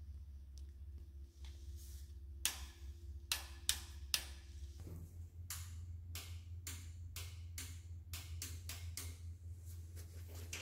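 Irregular sharp clicks and light taps over a low steady hum: a few about two seconds in, then a quicker run of two or three a second.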